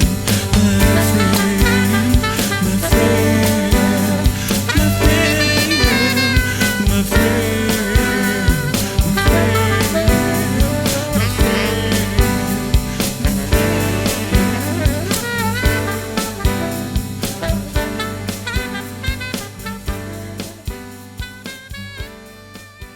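Background music in an instrumental stretch between sung verses: a steady drum beat under a bass line and a lead melody, fading out over the last few seconds.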